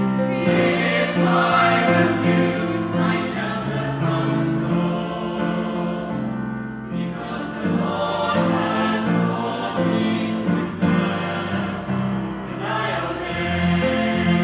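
A choir singing, with sustained low accompanying notes beneath the voices.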